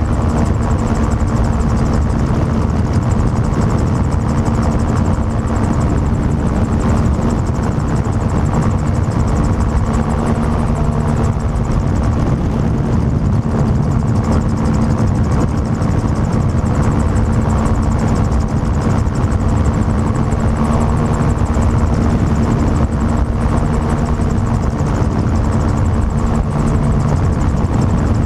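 Gyrocopter in flight, heard from its open cockpit: the engine running steadily with wind rush over the microphone.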